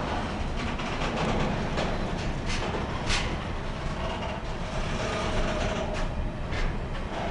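Empty iron-ore hopper wagons of a long freight train rolling past: a steady rumble of steel wheels on rails, with a few sharp clacks.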